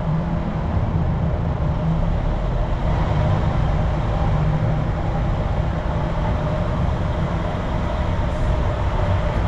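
Steady low vehicle rumble: car engine and road noise, unchanging throughout.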